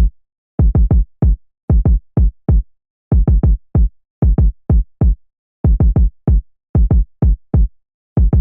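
Deep electronic kick-drum hits, each dropping in pitch, played in a syncopated repeating pattern of single, double and triple hits with short gaps and nothing underneath.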